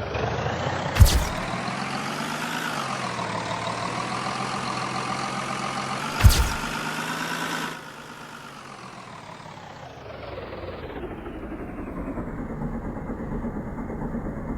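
Vehicle engine running, its pitch shifting a little, then dropping off about eight seconds in and building again near the end. Two sharp bangs cut through it, about a second in and about six seconds in.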